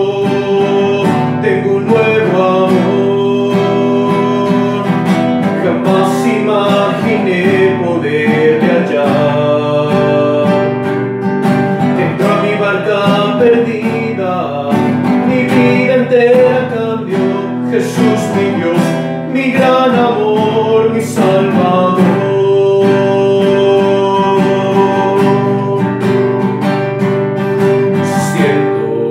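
A song with an acoustic guitar strummed steadily. A voice sings a melody over it from about six seconds in until about three-quarters of the way through, and then the guitar carries on alone.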